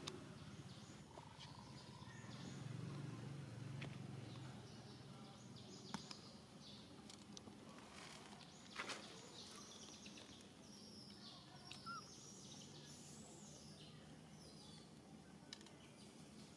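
Faint outdoor ambience with distant birds chirping in short high calls, mostly in the second half, and a few soft clicks, the sharpest about nine seconds in.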